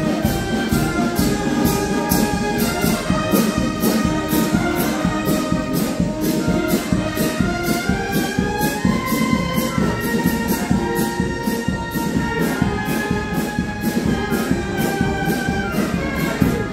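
Brass band playing a march, with held melody notes over a steady beat.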